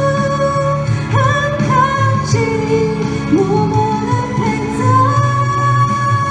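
A woman singing a Mandarin pop song through a handheld microphone over an instrumental backing track, holding a long note near the end.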